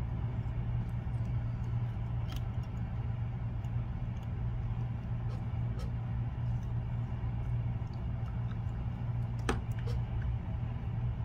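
Steady low background hum. Over it come a few light clicks and ticks of tying thread and tools being handled while half hitches are thrown behind a fly's cone head, with one sharper click near the end.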